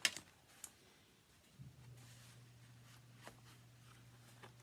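Quiet handling of paper and hemp string while sewing a journal signature: a few faint clicks and taps. A low steady hum comes in about one and a half seconds in.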